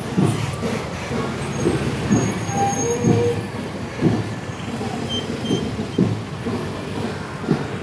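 Rumbling road noise from idling and slow-running motorcycle engines, with a large coach close by. Wind gusts buffet the microphone unevenly throughout.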